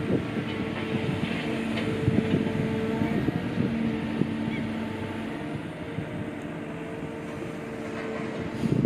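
A steady mechanical hum, with a low drone and a higher tone above it over general city noise. The lower part drops away about halfway through, while the higher tone carries on.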